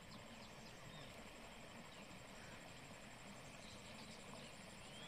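Near silence: faint outdoor ambience, with a few faint, short, high chirps about half a second in and again around four seconds in.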